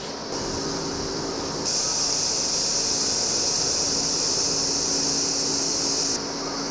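Steady high hiss that gets noticeably louder about a second and a half in and drops back abruptly near the end, over a faint low hum.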